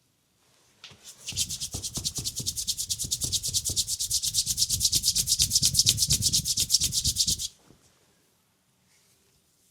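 Hands rubbing briskly back and forth on bare skin in a leg massage. The strokes come fast and evenly, about seven a second, starting about a second in and stopping suddenly some six seconds later.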